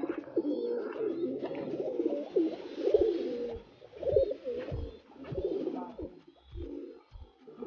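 Fancy pigeons, fantails among them, cooing together in a loft, the overlapping calls rising and falling in waves about once a second, with a few low thumps.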